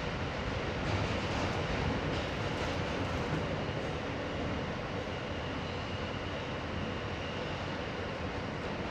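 Steady running noise of a subway train, heard from inside the car.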